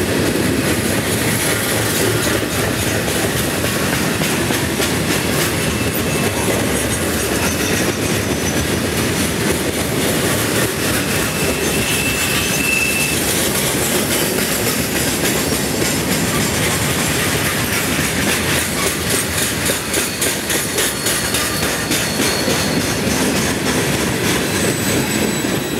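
Rack-sided freight cars loaded with railroad ties rolling steadily past at close range, wheels clacking rhythmically over the rail joints. A brief high wheel squeal sounds about twelve seconds in.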